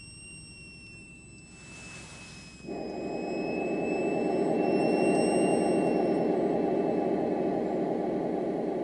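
Yamaha PSR-E273 keyboard playing one of its built-in sound-effect voices. A thin, steady high whine with a short hiss is followed, about three seconds in, by a loud, low rushing roar that starts suddenly and holds.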